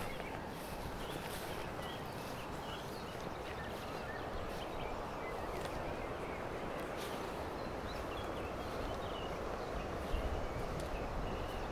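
Outdoor riverbank ambience: a steady rustle of wind and grass with faint bird chirps and a few soft steps through tall grass. A low rumble swells near the end.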